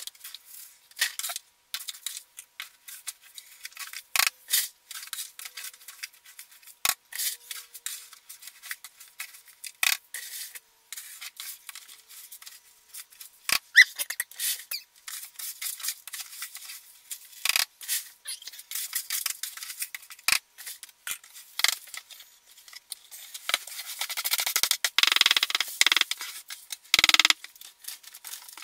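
Plastic litter scoop scraping and raking through cat litter in a plastic litter pan, with many short irregular scrapes and rattles as clumps are lifted and dropped into a bag-lined trash can. Near the end the pan is tipped and the litter pours out in a longer hiss.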